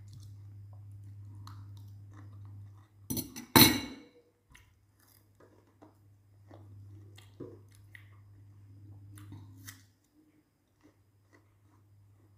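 A person eating and chewing with scattered faint crunchy mouth clicks. Two sharp knocks about three seconds in are the loudest sounds, and a low steady hum runs underneath until about ten seconds in.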